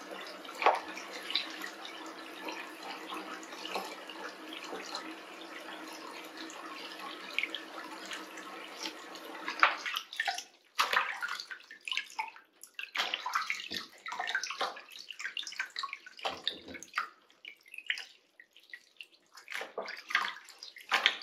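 Tap water running steadily into a water-filled sink. About halfway through the steady flow stops and water splashes and sloshes in short bursts as a wet kitten is scrubbed with a sponge; the tap runs again near the end.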